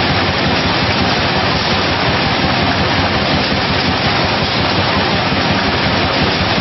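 A 24,000-bottle-per-hour combiblock bottling machine running at production speed: a steady, loud, even rushing noise from the machinery that does not change.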